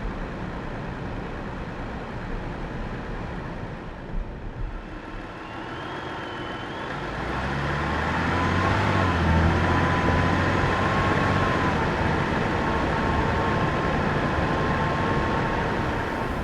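2022 Chrysler Voyager minivan's 3.6-litre V6 running with road noise. The sound grows louder from about seven seconds in as a deep steady engine note comes up, then holds. A faint wavering whine runs above it.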